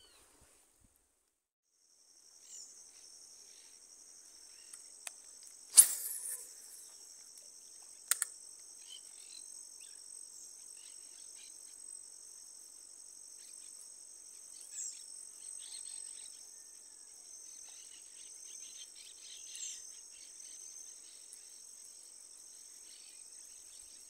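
Steady high-pitched insect chorus that comes in about two seconds in, with scattered faint bird chirps. A sharp click about six seconds in and a smaller one near eight seconds.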